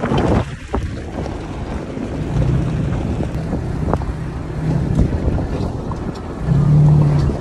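Wind rushing and buffeting at the microphone from a vehicle driving a bumpy dirt road, over the low drone of the engine and tyres. A few sharp knocks and rattles come from the bumps, and the drone swells near the end.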